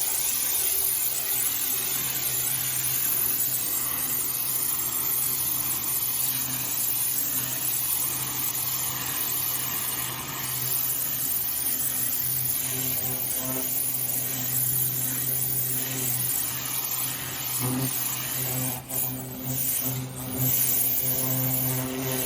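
Pressure washer running: a steady motor hum under the hiss of the water spray, broken by two brief dips near the end.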